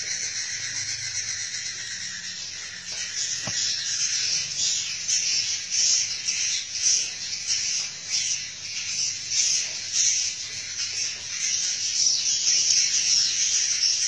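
Edible-nest swiftlets twittering, a dense high-pitched chirping chorus that swells and fades in quick irregular pulses and grows busier after the first few seconds.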